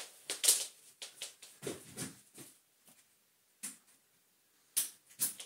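A few sharp clicks and knocks, spread over several seconds, as the Electrolux Turbomatic Z380 vacuum cleaner is handled and tried. No motor starts: the cleaner does not turn on.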